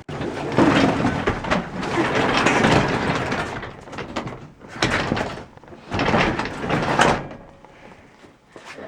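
Heavy door sliding on its tracks, a rough rattling rumble with knocks for about three and a half seconds, then two shorter bursts of the same noise near the middle and later on.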